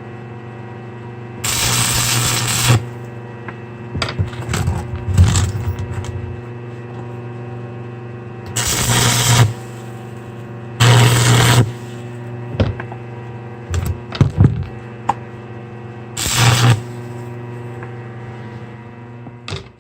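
Electric welder humming steadily, with four short bursts of welding crackle about a second long, as tack welds are laid on steel chain links; a few knocks and clicks of metal being handled come between the welds.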